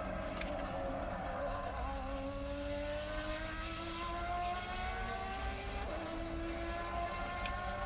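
Race car engine heard on a recording of a Le Mans test lap, its pitch climbing slowly as the car accelerates.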